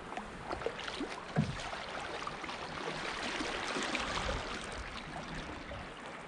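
Brook water running over a riffle around an open canoe, a steady rush scattered with small gurgles and splashes. A low thump comes about a second and a half in.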